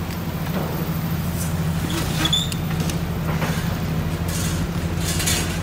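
Street noise carried by a steady low engine hum from a nearby motor vehicle. A few light clicks and a short high squeak come about two seconds in.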